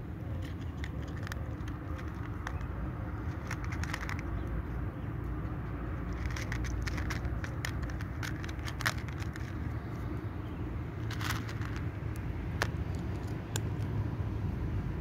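Cat crunching dry kibble: short, sharp, irregular crunches in clusters, over a steady low rumble.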